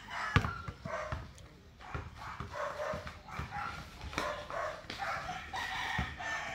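A basketball bouncing on an outdoor concrete court, with sharp thuds, the loudest about half a second in. Repeated short pitched calls sound in the background.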